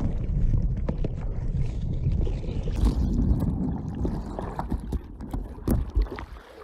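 Water sloshing and wind rumble around a kayak at sea, with a few sharp knocks near the end, fading out.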